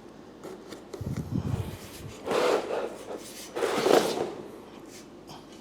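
Large cardboard shipping boxes being handled and pulled apart. There is a low rumble, then two scraping rasps about a second and a half apart.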